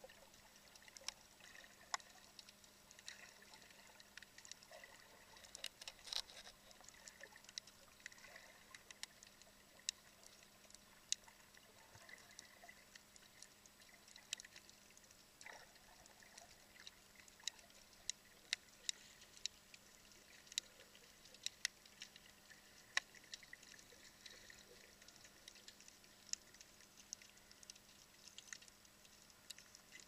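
Faint underwater ambience picked up by a submerged camera: scattered, irregular sharp clicks and crackles over a quiet hiss and a steady low hum.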